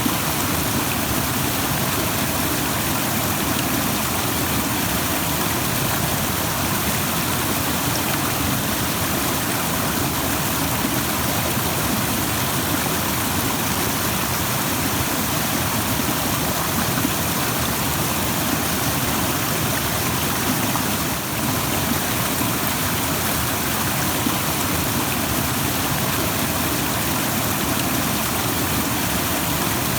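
Rushing stream: water running over rocks in a steady, even roar of noise.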